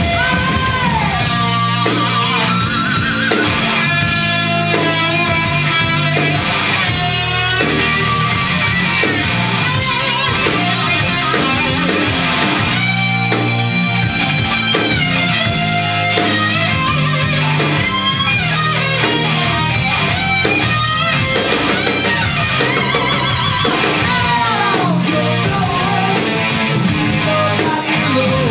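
Live hard rock band playing loud: an electric guitar lead with bent, gliding notes over drums and bass, with no singing.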